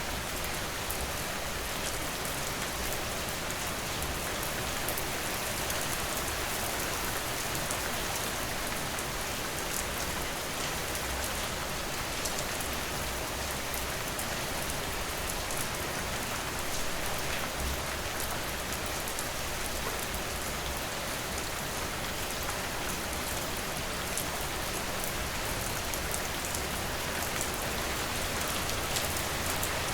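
Steady rain falling, drops pattering on a surface, with no thunder.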